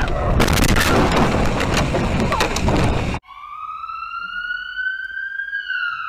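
A loud stretch of dense noise full of sharp cracks and clatters, in keeping with a car-crash sound effect, cuts off abruptly about three seconds in. An emergency-vehicle siren then wails, rising slowly in pitch and starting to fall near the end.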